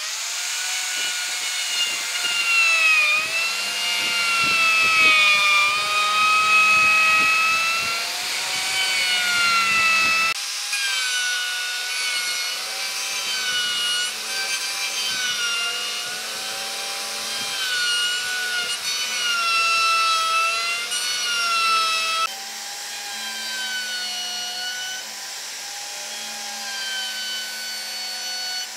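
DCA electric plunge router running and cutting into pine. Its motor whine dips and rises in pitch as the bit takes load, and the sound changes abruptly about ten seconds in and again about twenty-two seconds in.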